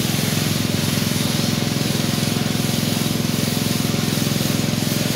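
Air spray gun hissing as it sprays paint, over a motor running steadily with a fast, even pulse.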